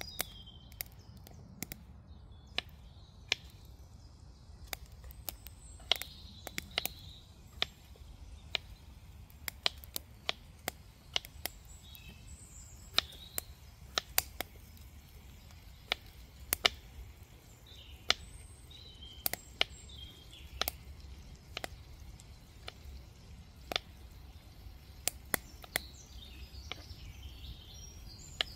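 Kitchen knife dicing raw turkey on a cutting surface: sharp taps of the blade at irregular intervals, about one a second, with faint birdsong behind.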